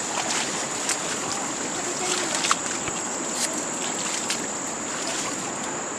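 Water sloshing and splashing over a steady high-pitched whine, with scattered small clicks.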